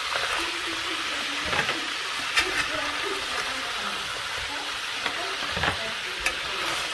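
Crab pieces sizzling steadily in hot oil and butter in a steel pot, with a few sharp clinks and scrapes of a slotted metal spoon against the pot as the crab is lifted out.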